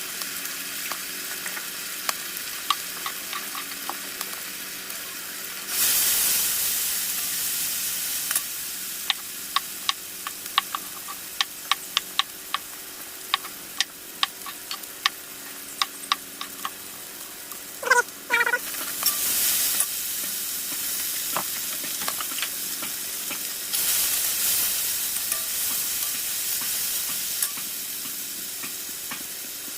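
Food sizzling in hot oil in a pan while a spoon stirs it. The sizzle swells louder three times, and in the middle the spoon clicks and scrapes against the pan many times, with a short squeal a little past halfway.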